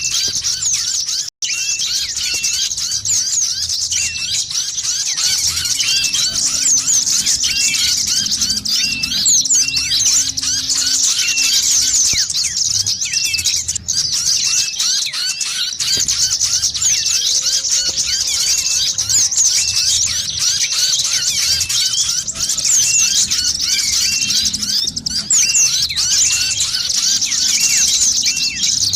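A dense chorus of small songbirds chirping and twittering rapidly without pause, many short high notes overlapping: a lure recording (pikat) of small birds' calls, used to draw wild birds in.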